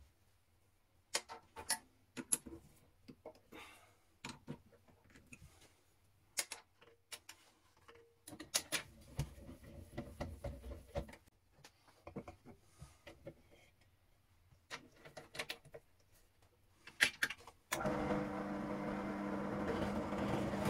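Benchtop drill press being set up: scattered clicks and knocks of the chuck and wood blocks being handled, and a low rumble while the table's height crank is turned. About 18 seconds in the drill press motor switches on and runs with a steady hum.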